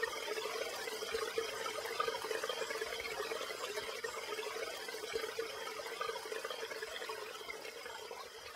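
Steady running water in an aquarium, an even splashing hiss that grows a little quieter toward the end.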